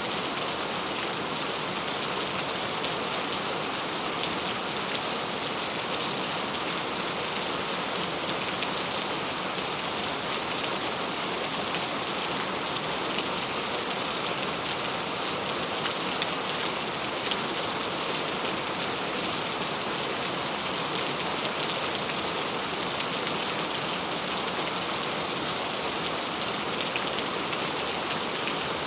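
Steady rainfall: a continuous even hiss of rain with many small drop ticks on a surface.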